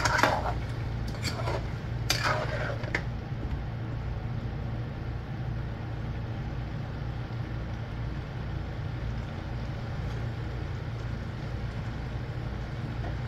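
Metal spoon stirring a thick taro curry in a large aluminium pot, clinking against the pot a few times in the first three seconds. A steady low hum runs underneath.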